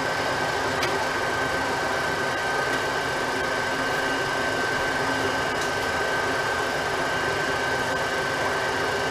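Metal lathe running steadily, turning a vented Porsche Boxster brake rotor in the chuck while the tool takes a light 0.1 mm facing pass across the disc. It makes an even running noise with a steady high whine and a few faint ticks.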